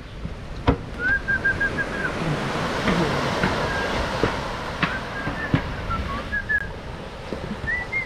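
Blackfish (pilot whale) blubber frying and bubbling in a steel drum pot of fat over a wood fire, with a wooden paddle knocking against the pot now and then. Short high whistled notes come and go over it.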